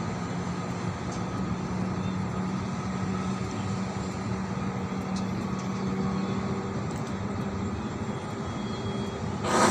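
Steady urban drone, like traffic and machinery, with a steady low hum running under it; the noise swells suddenly just before the end.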